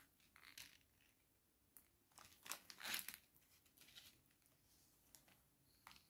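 Faint handling noises: a few soft plastic rustles and light knocks as a digital multimeter is moved and set down on the table, the most distinct about halfway through.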